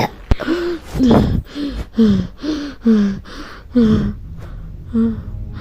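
A person's voice gasping over and over in short breathy bursts, about two a second, each falling in pitch. A low steady hum comes in about four seconds in.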